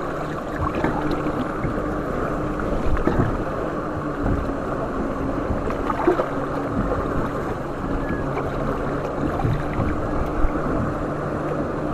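Suzuki outboard motor running steadily with a low hum, over the splash of water against the boat's hull.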